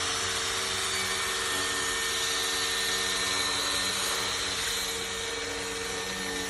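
A motor running steadily, a hiss with a low hum that wavers slightly in pitch.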